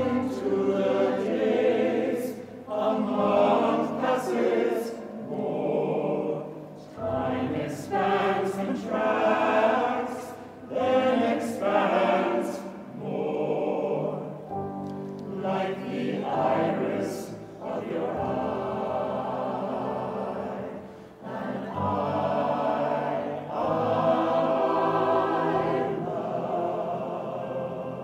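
A choir singing a slow contemporary classical piece in phrases of a few seconds, with short breaks between them and longer held notes near the end.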